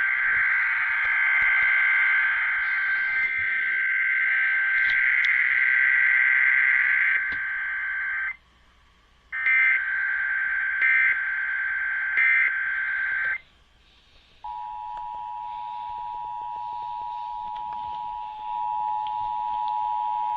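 Emergency Alert System test off a radio: a harsh, buzzing data signal in two stretches, each broken off by a second of silence. After the second gap, about 14 seconds in, the steady two-tone EAS attention signal begins and holds.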